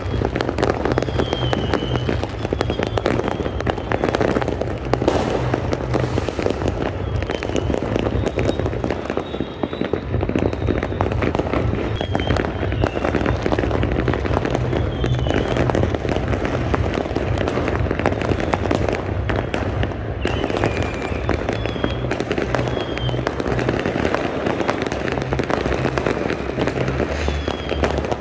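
Fireworks going off in a dense, continuous barrage of bangs and crackling, with short high whistles here and there.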